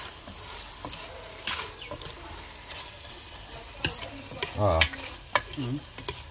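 Metal spoon stirring chicken, potatoes and onions in a stainless steel pot, scraping and clinking against the pot's sides over a steady sizzle of frying masala. The clinks come sparsely at first and more often in the second half, with a brief low pitched sound about four and a half seconds in.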